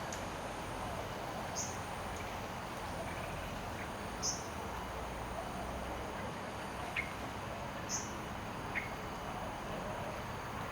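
A bird gives short, high call notes every two to four seconds over a steady background hiss. Two lower, shorter chirps come in the second half.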